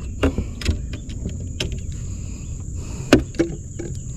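A steady high-pitched insect drone with a low rumble beneath. A few sharp knocks and clicks cut across it, the loudest about three seconds in with another just after it.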